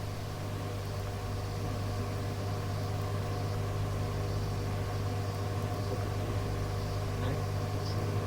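Steady hum and hiss of an open air-band radio channel carrying no speech: an even, low drone with a few steady tones above it.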